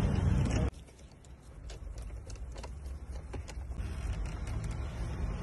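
Scattered light clicks and taps of plastic dashboard trim and a car radio head unit being handled and fitted, over a low rumble. A louder low hum cuts off abruptly under a second in.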